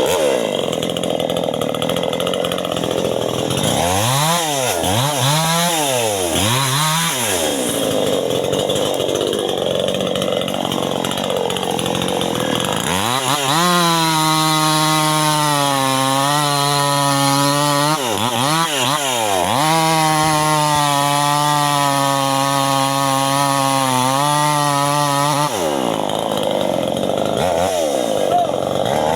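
New West 598XP two-stroke chainsaw running at high revs while cutting mahogany wood. The engine pitch drops and climbs back several times, with noisier stretches where the chain is in the wood.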